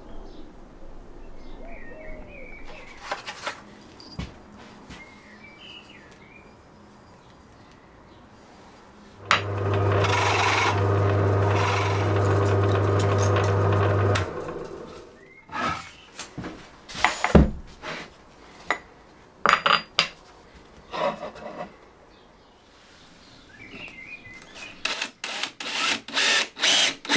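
Woodworking tool sounds: a power tool runs steadily for about five seconds, then a string of sharp knocks and short scraping strokes of tools on wood follows, thickest near the end.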